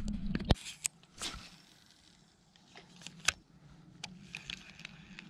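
Handling noise from a spinning rod and reel and the camera: a dull thump about half a second in, a sharp click a little after three seconds, and scattered smaller clicks and knocks over a faint steady background.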